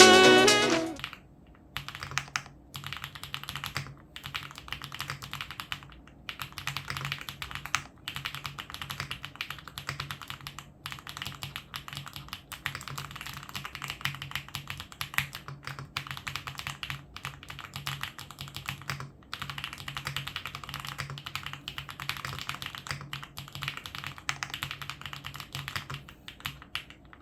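Fast typing on a full-aluminium TKD Cycle 7 70% mechanical keyboard fitted with Soulcat PORO Medium 45g linear switches and PBT keycaps. It makes a dense run of high-pitched key clacks as the keys bottom out, broken by a few brief pauses. Music fades out during the first second.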